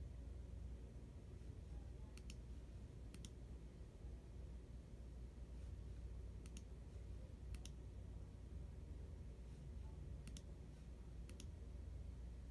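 Faint computer mouse clicks: six sharp clicks in three pairs about a second apart, selecting colour swatches. A low steady room hum runs underneath.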